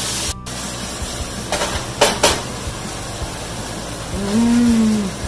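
A woman's drawn-out "mmm" of enjoyment as she tastes a bite of pork adobo, rising a little then falling, about four seconds in. Before it a steady hiss runs underneath, with a few short clicks around the middle.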